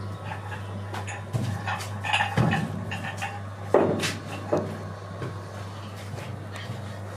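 A steady low hum under scattered knocks and light clatter of dishes on a table, the loudest knock a little under four seconds in.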